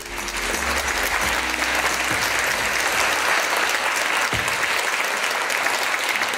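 Audience applauding, the clapping swelling up within the first half second and then holding steady.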